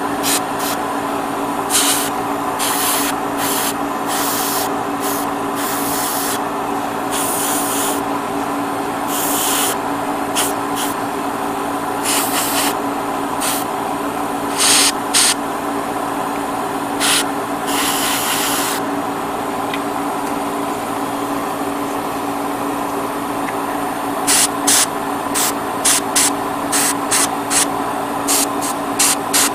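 Airbrush spraying paint in short hissing bursts, scattered at first, then many quick ones in a row near the end after a pause of a few seconds. A steady machine hum runs underneath.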